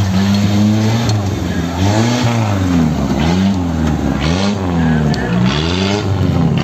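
Off-road 4x4's engine revving up and down again and again, about once a second, as the vehicle crawls over large rocks.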